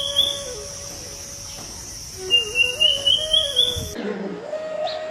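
A bird's rising trilled call, twice, each lasting about a second and a half, over a steady high insect drone like crickets. Near the end the recording cuts off suddenly and a different one begins with low notes.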